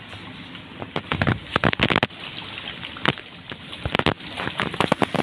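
Pancake ice on a freezing sea knocking and scraping against a boat's hull as the boat moves through it. Sharp, irregular knocks in quick clusters begin about a second in, over a steady water noise.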